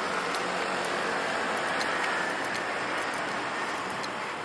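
Steady hiss of street traffic, with no single vehicle standing out.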